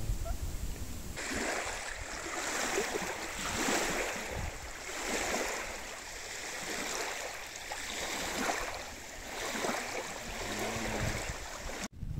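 Water swishing and splashing around a canoe in even surges, about one every second and a half, starting about a second in and cutting off abruptly just before the end.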